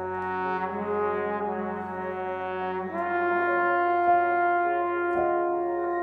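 Background music of slow, sustained chords, moving to a new chord about three seconds in.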